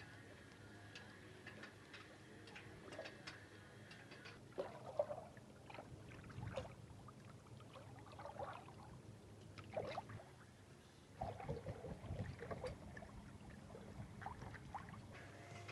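Faint water lapping and gurgling against a sailboat's hull, in irregular small splashes and trickles.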